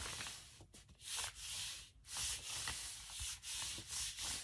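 Palms rubbing briskly over a paper manila envelope to press it down onto lightly glued fabric, a dry rustling swish repeated about twice a second.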